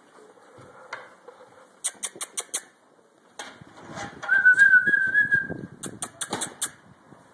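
A single high whistle, held for just over a second and rising slightly, over the scuffling of Great Dane puppies moving about in wood shavings. Two quick runs of sharp clicks come about two seconds in and again near the end.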